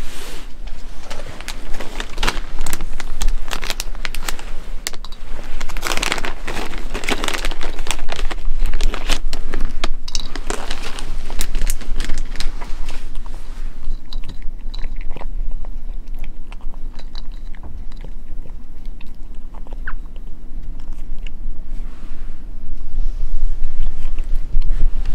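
Brown-tabby-and-white cat crunching dry kibble. Rapid, dense crunches for the first half or so, then sparser and quieter.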